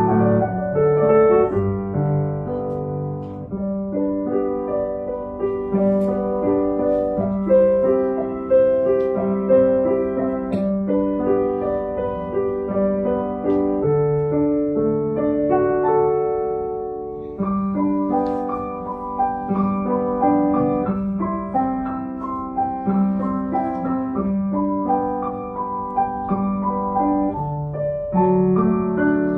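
Steinway grand piano played solo: a steady flow of notes, a melody over lower accompanying notes, with a brief break in the phrase about halfway through.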